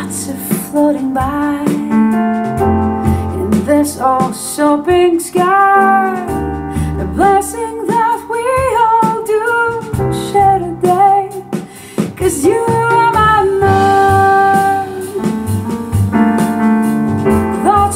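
A vinyl record playing over a hi-fi system's loudspeakers: a woman singing with piano accompaniment.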